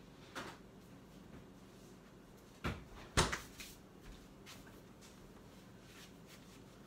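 A few short knocks and clatters of kitchen cleanup, such as cabinet doors or dishware being handled. The two sharpest come about half a second apart, roughly three seconds in.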